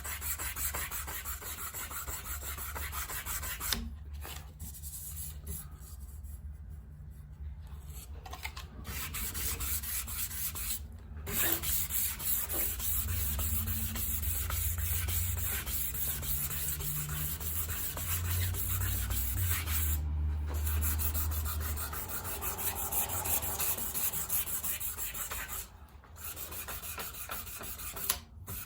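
Hand sanding with a block sander and fine 1000-grit paper: steady scratchy rubbing strokes to take the edges off a part, broken by a few short pauses.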